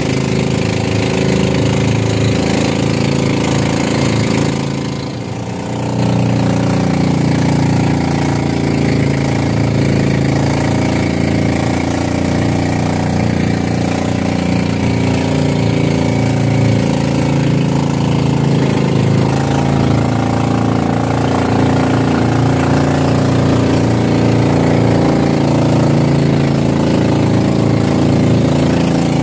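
Motorized outrigger boat's engine running steadily under way, with a brief drop in level about five seconds in.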